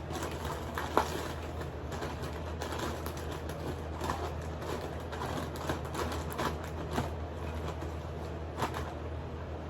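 Someone eating adobo chicken feet: chewing, sucking and soft clicks and smacks of the mouth on the small bones, over a steady low hum. A sharper click comes about a second in.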